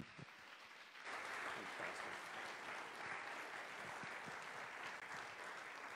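A congregation applauding, the clapping swelling about a second in and then holding steady.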